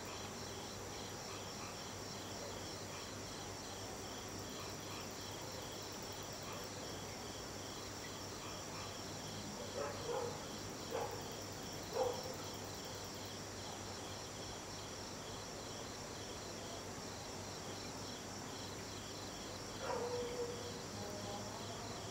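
A steady chorus of night insects chirping in a fast, even pulse. A few brief louder sounds cut in about ten to twelve seconds in and again near twenty seconds.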